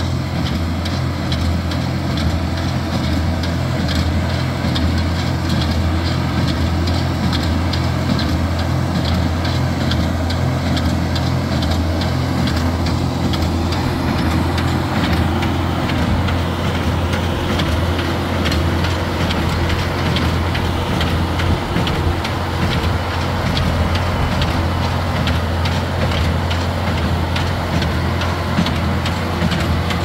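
LS XR4040 diesel tractor running steadily under load while pulling a New Holland Hayliner 67 square baler, with the baler's regular mechanical clatter repeating over the engine's hum.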